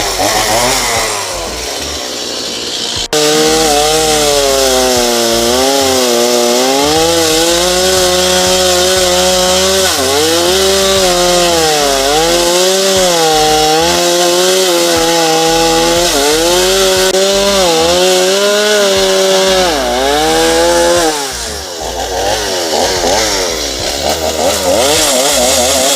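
Two-stroke chainsaw running at high revs and cutting wood, its pitch dipping again and again as the chain bites in and then picking back up. There is an abrupt cut in the sound about three seconds in, and the saw sounds rougher near the end.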